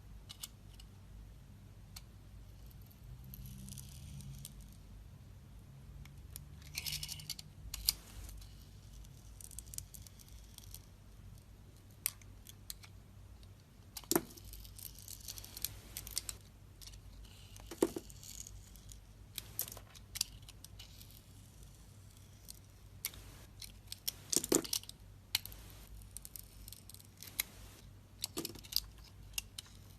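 Knife carving a bar of soap: short scraping and shaving strokes with crisp crumbling, and a sharp click now and then as the blade meets the soap or the board.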